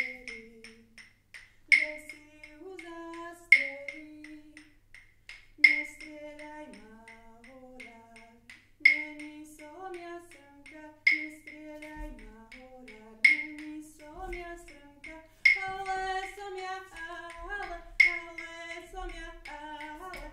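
A woman singing a slow melody unaccompanied, punctuated by a sharp, ringing click about every two seconds.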